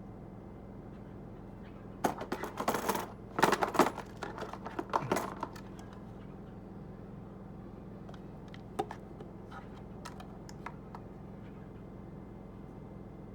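Small metal objects clattering and clinking in a burst of rattling that lasts about three seconds, followed a few seconds later by a few light clicks.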